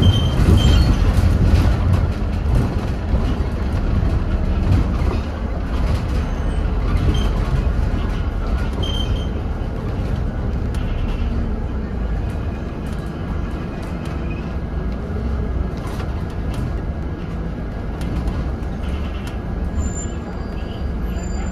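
Scania N230UD double-decker bus under way, heard from inside the upper deck: a steady low rumble of the diesel engine and tyres, with scattered light rattles and clicks.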